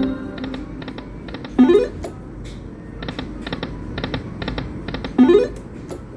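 Poker machine electronic sound effects: a steady run of short beeps, mostly in pairs, with two loud rising jingles, one at about one and a half seconds and another near five seconds.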